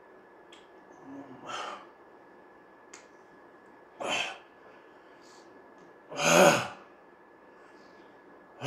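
A man blowing out heavy breaths through his mouth around a lollipop stick, about every two and a half seconds, the loudest about two-thirds of the way through. He is panting against the burn of a 9-million-Scoville chili-extract lollipop that has numbed his lips.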